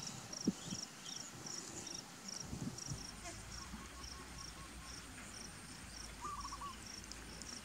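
An insect chirping steadily in short, pulsed chirps about twice a second, with a faint continuous high hiss behind it. A brief trill sounds about six seconds in.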